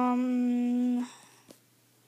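A boy's voice humming one steady, unbroken note for about a second, a hesitation hum between words, then it stops.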